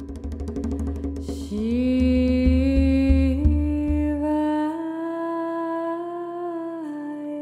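Live kirtan-fusion song: a voice singing or humming long held notes that slide upward, over drum strokes and a low bass that drops out about five seconds in.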